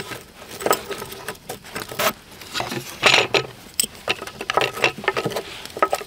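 Handling noise of the Victorinox Venture knife being set against the sharpening stones in the Pro Kit's plastic holder: a run of light clicks and rattles, with a short scraping rustle about three seconds in.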